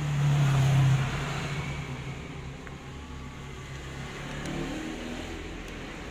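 A low motor hum with a hiss over it, loudest about a second in and then easing off.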